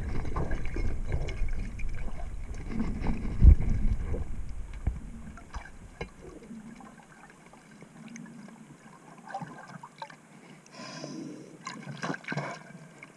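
Muffled underwater sound of the moving camera: low water rumble with scattered knocks, one sharper knock about three and a half seconds in. After about six seconds it drops to faint clicks and soft rustling.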